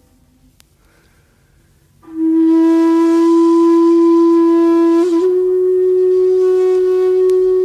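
Background music: after about two seconds of near silence, a solo flute comes in with one long held low note, breathy at first, that steps up slightly in pitch about five seconds in and carries on.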